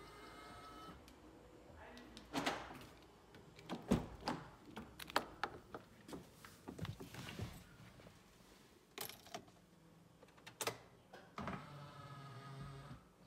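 An electric folding door mirror motor on a VW Tiguan whines for about a second as the mirror finishes folding in. Then come a run of sharp clicks and knocks of the door and cabin being handled. Near the end the mirror motor whines again for about two seconds as the mirror unfolds automatically with the ignition switched on.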